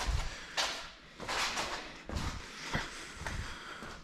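Handling noises from a removed car rear seat being carried and set down: scuffing and rustling with a few dull thumps at irregular moments.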